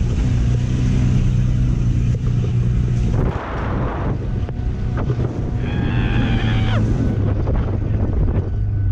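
2003 Ford Focus four-cylinder engine running under way, loud through an exhaust whose catalytic converter has been gutted, with wind buffeting the microphone.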